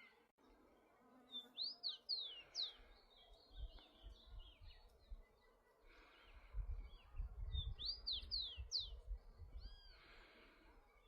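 Rufous-collared sparrow singing: two songs of quick, high slurred whistles, about six seconds apart, with a shorter phrase near the end. A low rumble comes and goes underneath.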